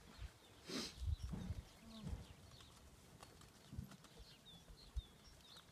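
A horse making snorting and low vocal sounds, with a few dull thuds and faint bird chirps near the end.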